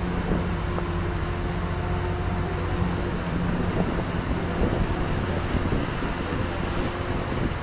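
Small motorboat under way: its engine hums steadily, over a constant rush of water and air.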